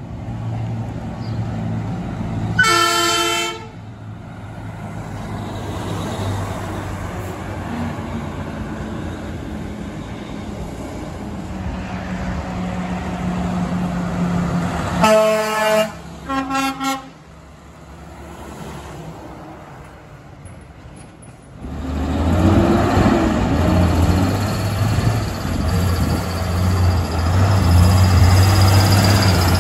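Freightliner 122SD's twin Hadley H02006FP air horns blown once long, then twice short, about halfway through, over passing traffic. A single truck horn blast comes a few seconds in, and near the end an International 5000 6x4 log truck's diesel engine is loud as it pulls away.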